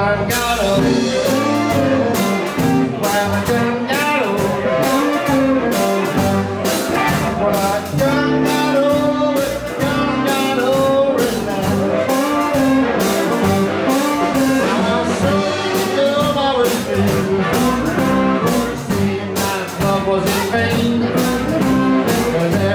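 Live 1950s-style blues band playing: electric guitar, upright bass and drum kit with a steady beat, and a harmonica played into a microphone.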